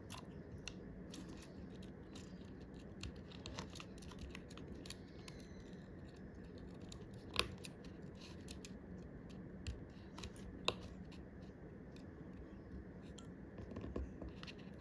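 Faint scratching and scattered small clicks of tweezers and tiny parts being handled while the Face ID module is fitted back into an iPhone XR, with a few sharper clicks through the middle.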